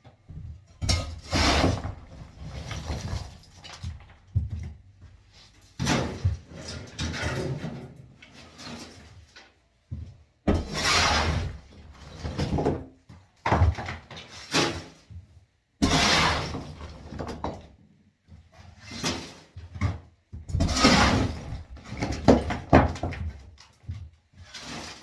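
Demolition: a series of crashes and thuds as building material is broken apart and falls, each lasting a second or two. They come in short clips with abrupt cuts between them.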